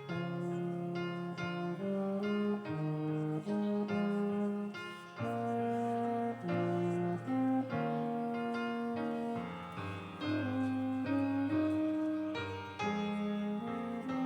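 Keyboard instrumental music: slow, held chords changing every second or so, with no singing.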